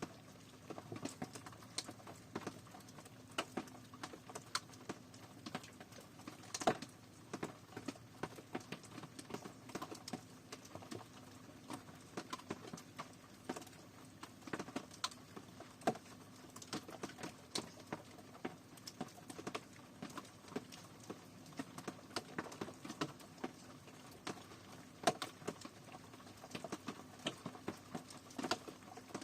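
Rain dripping and pattering: irregular sharp taps of single drops, several a second, some louder than others, over a faint steady hum.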